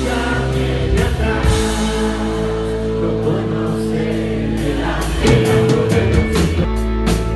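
Rock band playing live: a male singer over electric guitars, bass guitar and a drum kit with cymbals.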